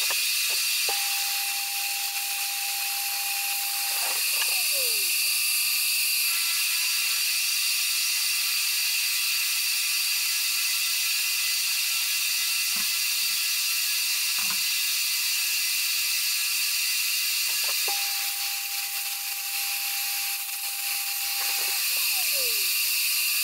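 Deckel FP1 milling machine running, its vertical-head end mill cutting a 12 mm wide, 2 mm deep slot in the steel mounting plate with a steady hiss. Twice, a steadier motor tone comes in for about three seconds and then falls away in pitch as it stops.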